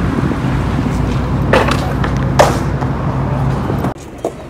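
Skateboard wheels rolling over wet concrete, a steady low rumble with two sharp clacks about a second and a half and two and a half seconds in. The rumble cuts off abruptly near the end.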